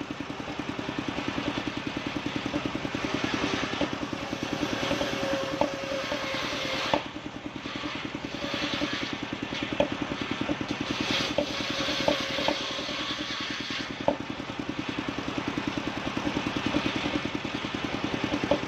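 Engine-driven circular saw bench cutting bayur timber: the engine runs steadily with a fast, even pulsing beat, and a hiss from the blade biting into the wood rises over it twice for several seconds. Several sharp wooden knocks come as the plank is pushed along the bench.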